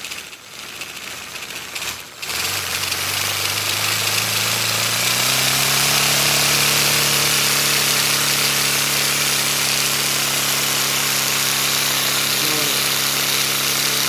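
Air-powered paper model radial engine running on air let out of balloons, starting about two seconds in. There is a loud, steady rush of air with a buzzing, rattling hum whose pitch steps up a few seconds later and then holds.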